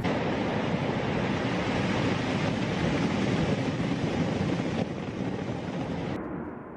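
Ocean surf breaking against a lava shore, heard as a steady rushing noise mixed with wind. It dips in level about five seconds in and turns duller near the end.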